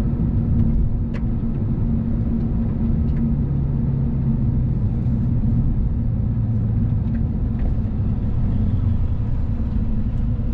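The 5.0-litre naturally aspirated V8 of a 2021 Lexus RC F Fuji Speedway Edition runs steadily on a racetrack straight, heard from inside the cabin along with road noise.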